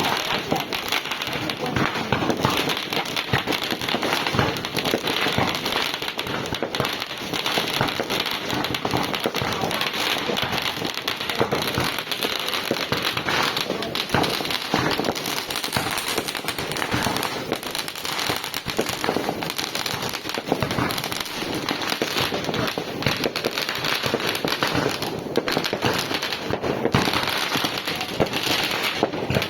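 Fireworks going off in a dense, continuous crackle of many overlapping pops, steady throughout without a pause.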